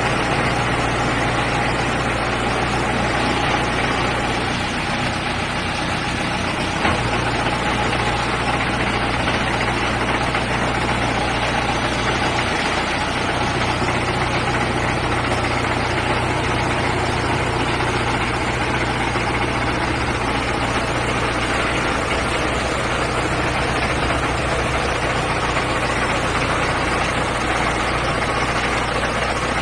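XYX-3 core drilling rig's engine running at a steady idle while its gear and hydraulic levers are worked. The low hum dips briefly twice, with a small click once.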